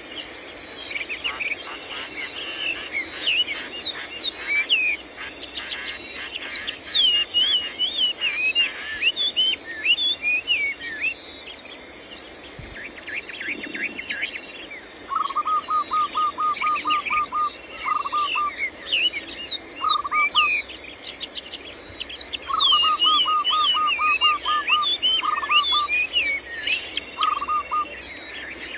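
Birds calling with quick chirping notes that rise and fall, over a steady shrill drone of insects. About halfway through, rapid runs of lower repeated notes start up and come back several times.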